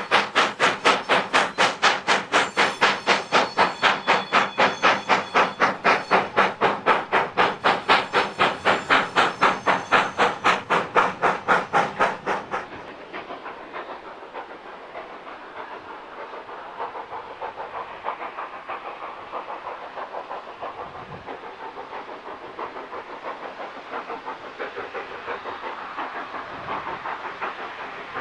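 Steam locomotive working hard up a steep bank, its exhaust beating loud and even, about three to four beats a second. About halfway through, the chuffing turns softer and more distant.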